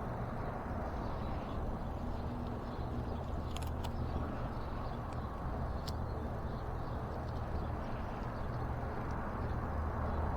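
Steady low outdoor background rumble, with a few faint clicks and ticks from hands working on wire connectors.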